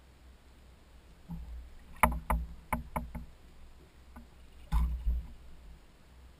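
Sharp knocks and thumps on the plastic hull of a Hobie Adventure Island kayak while a landed fish is handled aboard. There is a run of about six a little over a second in, the loudest near two seconds, and a second pair near the end.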